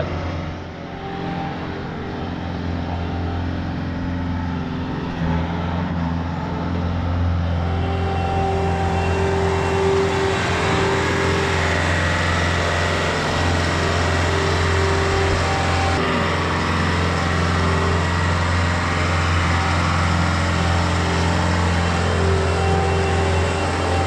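Bobcat skid steer's diesel engine running steadily, growing louder over the first several seconds. A higher whine comes and goes over the engine hum.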